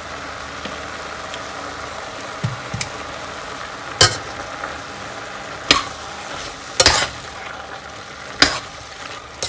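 Metal spoon stirring tomato sauce into mince frying in a stainless steel pot, over a steady sizzle. Four sharp knocks of the spoon against the pot come in the second half, one to two seconds apart.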